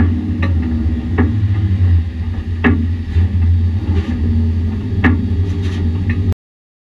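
Race truck engine running steadily at low revs, heard from inside the cab, with sharp knocks and rattles every second or two. The sound cuts off abruptly near the end.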